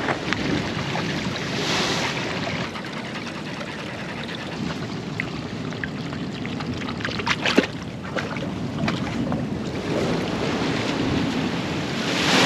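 Ocean surf breaking on a rocky lava shoreline, a steady wash of water with wind on the microphone. A few sharp clicks come about seven seconds in, and near the end a wave surges into the rocks with a loud hiss of spray.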